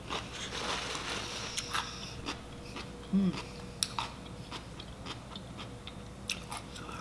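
Close-miked mukbang eating of a seafood boil: chewing and biting with many short wet mouth clicks and occasional crunches.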